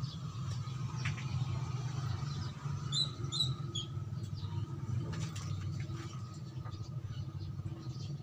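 Steady low hum with faint scattered clicks as a wire and solder are handled at the LED strip. A few short high chirps come about three seconds in.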